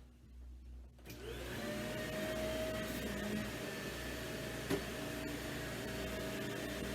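Corded vacuum cleaner switched on about a second in, its motor spinning up with a briefly rising whine and then running steadily. A single short knock sounds about five seconds in.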